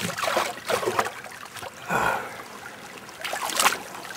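Shallow stream water trickling, with irregular splashes as the water is stirred up.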